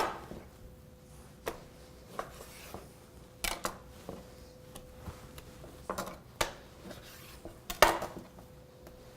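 Scattered knocks and taps as a breaking knife and pieces of pork are handled during butchering, about seven in all, the loudest near the end, over a faint steady hum.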